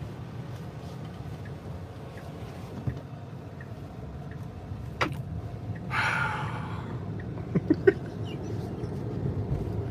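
Road and engine noise heard inside a moving car's cabin: a steady low rumble, with a few sharp clicks and knocks, the loudest a quick cluster of three about eight seconds in, and a brief hiss about six seconds in.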